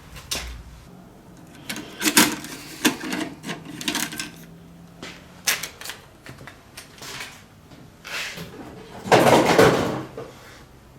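Computer circuit boards clicking and clattering as they are handled and cleared off a scale, with a longer, louder rattling clatter about nine seconds in.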